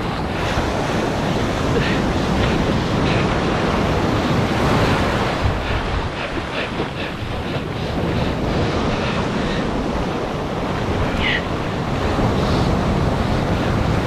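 Surf breaking and washing in the shallows of an ocean beach, with wind buffeting the microphone; a steady, loud wash of noise.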